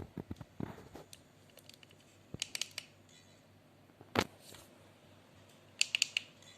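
A FeiyuTech Vimble One smartphone gimbal stabilizer making short clusters of sharp clicks, four groups spread a second or two apart: the extraneous noise it makes while working.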